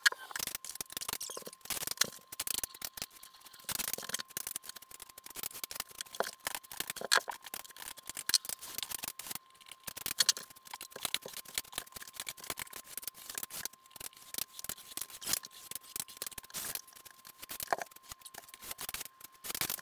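Steel drywall taping knife scraping joint compound onto drywall over the screw heads: a dense, irregular run of scrapes and clicks.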